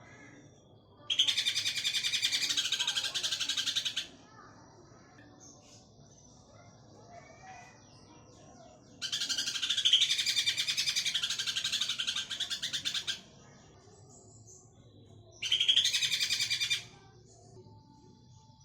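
Green leafbird (cucak ijo) giving its 'ngekek' chatter: three long bursts of very rapid, rattling high notes, of about three, four and one and a half seconds, with faint scattered chirps in the gaps.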